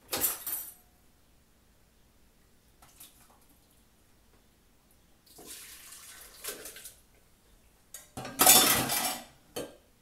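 Kitchenware being handled: short clinks and clatter of dishes and utensils, with a louder rush of noise about a second long near the end.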